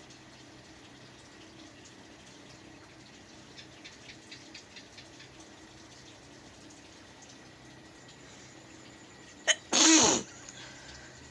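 A woman with a head cold sneezes once, loud and sudden, near the end: a short sharp catch, then the full sneeze. A run of faint ticks comes in the first half.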